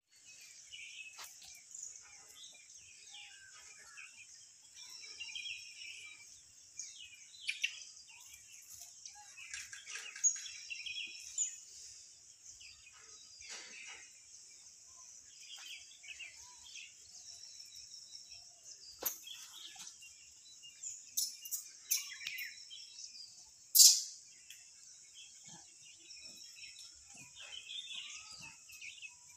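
Birds chirping and calling on and off over a steady high-pitched hiss, broken by a few sharp clicks; the loudest, a short sharp knock, comes about five seconds before the end.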